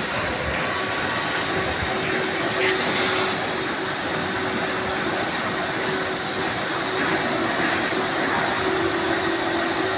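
Steady machinery noise in a barge-repair shipyard: an even hiss with a low drone and a faint steady hum underneath, unbroken throughout.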